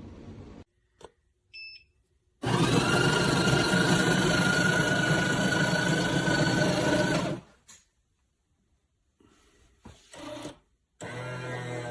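Café Affetto automatic espresso machine beeping once, then running loudly and steadily for about five seconds before stopping abruptly.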